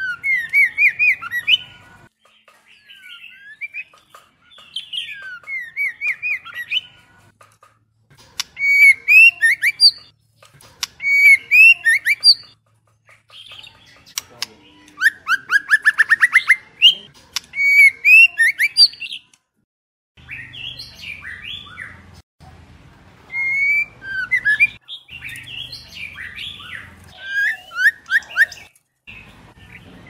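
White-rumped shama singing in phrases of rapidly varied whistled notes, broken by short gaps, with a fast rising trill about halfway through.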